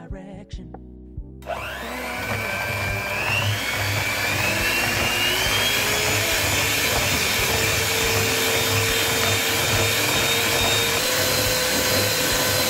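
Electric hand mixer switching on about a second and a half in, its motor whine rising as it comes up to speed, then running steadily with the beaters whisking eggs into the cake batter in a plastic bowl.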